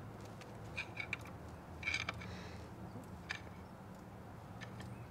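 Faint, irregular clicks and short scrapes of a screwdriver and pick prying at the front main seal in a CAT C15 diesel's aluminium front cover, with one longer scrape about two seconds in, over a steady low hum.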